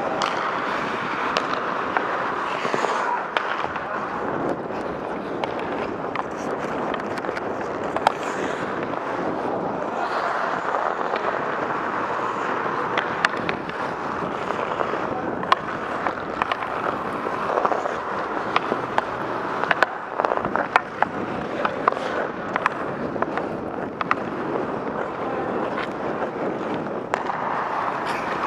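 Hockey skates scraping and carving on rink ice, with frequent sharp clacks of sticks and puck, most of them in the middle stretch.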